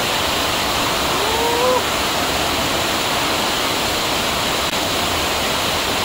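Waterfall cascading over rock into a pool: a steady, even rush of falling water. About a second and a half in comes a short rising pitched sound.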